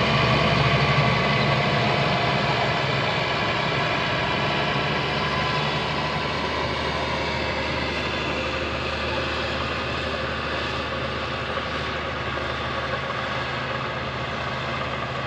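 Heavy diesel engine of earthmoving equipment running steadily with a low hum, gradually getting quieter.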